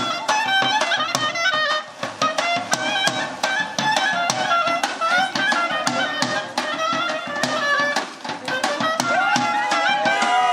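Traditional folk dance music: a wind-instrument melody with quick ornaments over a steady drum beat.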